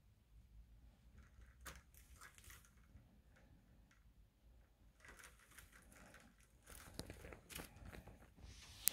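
Faint rustling, scratching and small crunchy clicks from a pearly conure clambering over a sisal rope toy with its beak and feet, with one sharper click near the end.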